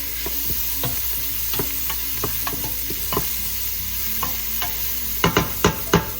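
Onions, garlic and ginger sizzling in hot oil in a pot while a spatula stirs them, knocking against the pot at irregular intervals. A few louder knocks come close together near the end.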